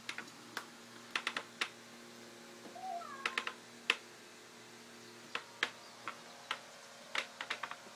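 Kittens playing with a string on a wooden floor: scattered quick clicks and taps of paws and claws as they pounce. A single short kitten mew about three seconds in.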